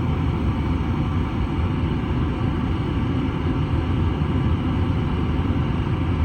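Gas furnace running with a steady low rumble, its blower motor not yet started.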